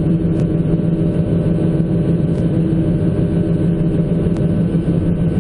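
Diesel engine of a 2004 John Deere 160C LC tracked excavator running steadily, an even hum.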